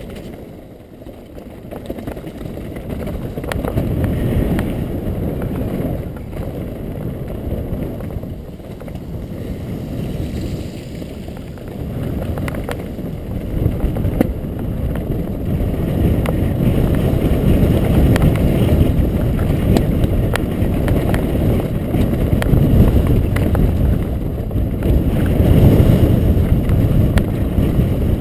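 Mountain bike descending rocky singletrack heard from a bike-mounted action camera: wind buffeting the microphone over a low rumble of tyres on loose stones, with rapid rattles and clicks from the bike over the rocks. It grows louder as the ride goes on.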